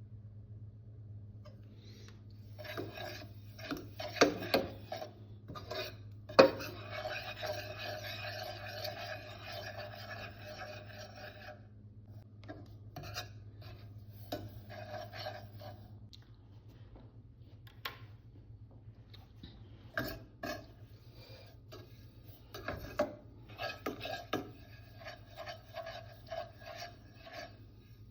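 Rasping, scraping strokes of kitchen food preparation in several runs, with scattered sharp knocks of a utensil, the loudest about four and six seconds in. A low steady hum runs underneath and stops about halfway through.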